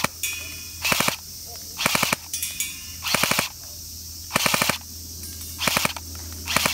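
Tokyo Marui M9A1 electric airsoft pistol firing short full-auto bursts of four or five rapid shots each, about one burst a second. Faint metallic ringing follows some bursts.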